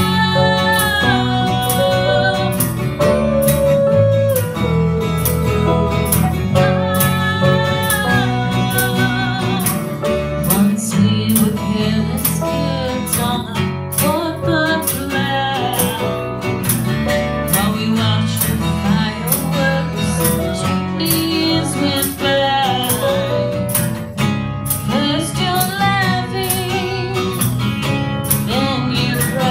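A small band playing a pop song live: a woman sings lead over strummed acoustic guitar, electric bass and a steady hand-drum beat.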